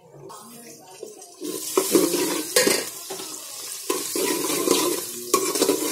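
Sliced onions sizzling in hot oil in a metal pot, stirred with a metal spoon that scrapes the pot in repeated strokes. It grows louder about a second and a half in.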